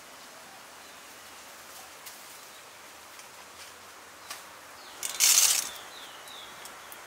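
A bundle of dry spaghetti plunged into a pot of boiling water over a wood fire, a short loud splashing hiss about five seconds in. Under it runs a steady outdoor hiss with a few faint bird chirps.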